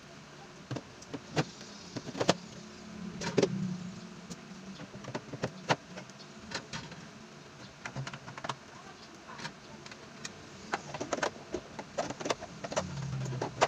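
Irregular sharp clicks and knocks of hard objects being handled, over a steady low background hiss.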